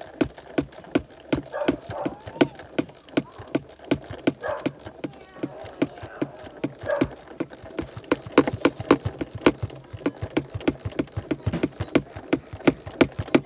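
Ratcheting wrench clicking rapidly and unevenly as it backs off the 10 mm adjusting nut on the parking-brake cable, slackening the emergency brake.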